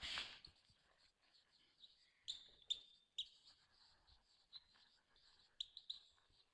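Faint marker-on-whiteboard writing: short squeaks and scratches from the marker tip as the words are written stroke by stroke. A brief rush of noise comes at the very start.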